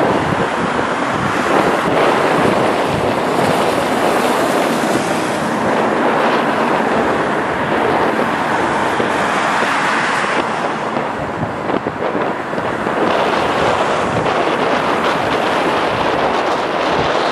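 Strong crosswind buffeting the microphone: a loud, steady rushing noise that swells and eases slightly with the gusts.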